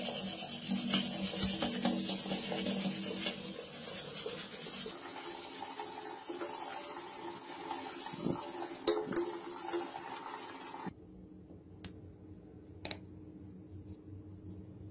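Hands scrubbing a rusty revolver frame under running water, a steady rushing and rubbing sound that cuts off suddenly about eleven seconds in. A couple of sharp clicks follow.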